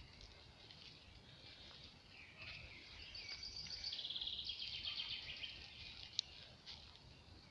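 A songbird singing a fast run of rapidly repeated high notes from about two to five and a half seconds in, over a low steady rumble from the moving bike. A single sharp click about six seconds in.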